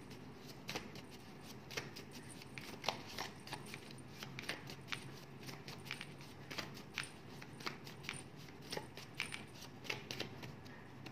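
Faint, irregular clicks and light snaps of paper word cards being handled and laid out, a few a second.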